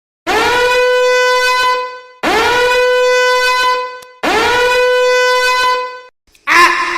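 Meme sound effect of three long horn blasts on the same note, each scooping up in pitch as it starts, with short gaps between. A different, lower horn-like sound starts near the end.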